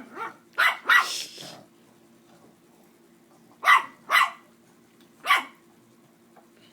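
Dogs barking in play between a puppy and an older dog: a quick cluster of sharp barks in the first second and a half, then three more single barks spread out after a pause. A faint steady hum runs underneath.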